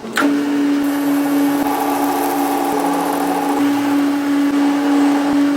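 An electric power tool's motor switches on and runs at a steady speed with an even hum and whir.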